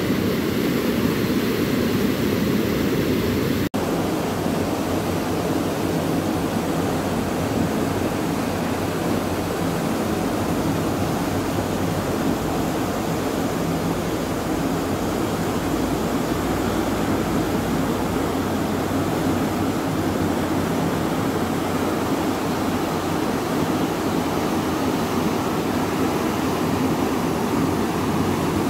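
Muddy floodwater of a river swollen by heavy rain, rushing and churning over and below a weir as a loud, steady rush. The sound cuts out for an instant about four seconds in.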